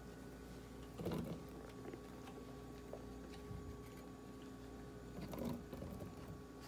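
Handfuls of fresh blueberries dropped into an empty plastic blender cup, landing in two short bursts, about a second in and again near the end, over a faint steady hum.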